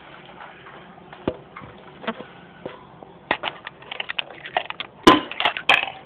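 Handling noise in a parakeet cage: a run of irregular clicks, knocks and scrapes that gets denser from about three seconds in, with the loudest cluster around five seconds in.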